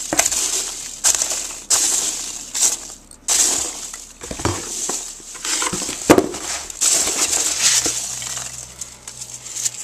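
Hands rummaging through a shipping box, packing material crinkling and crunching in a run of bursts, with a few light clinks.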